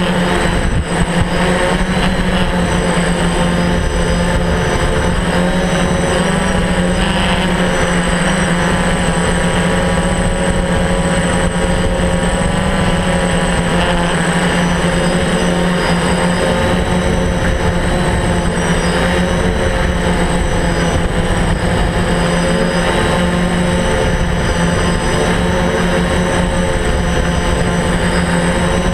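DJI F550 hexacopter's electric motors and propellers, heard from the camera mounted on the drone: a loud, steady drone of several tones whose pitch wavers slightly as the motors change speed in flight.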